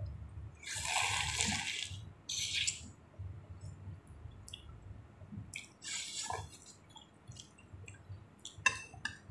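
Slurping of chicken thukpa noodle soup: a long wet slurp about a second in, a shorter one around two and a half seconds, and another near six seconds, with a few small mouth or spoon clicks near the end.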